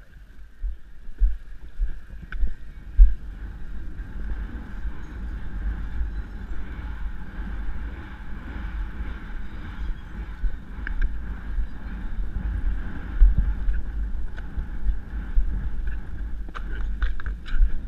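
Wind buffeting a horse rider's helmet-camera microphone as a low, gusting rumble, with a few short clicks near the end.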